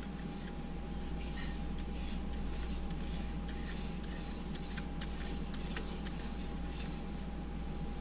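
Gloved hands smearing grease onto a motorcycle's rear axle hub: faint soft rustling with a few small clicks, over a steady hum.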